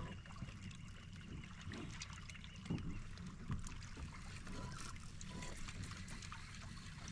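Faint water sounds around a small fishing boat, with scattered light ticks and knocks and a slightly louder knock about three seconds in.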